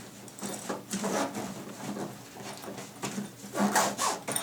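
Handling of a DeWalt DG5570 fabric roller tool bag and its heavy-duty zippers: a string of short scraping, rustling noises, several in a row.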